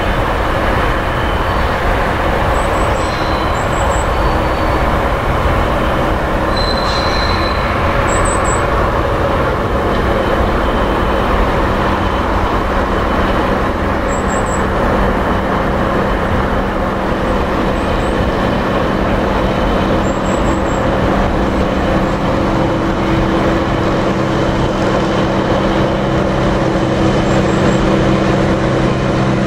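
Diesel shunting locomotive's engine running as it approaches hauling coal wagons, a steady drone that grows louder near the end. A few faint high chirps come and go.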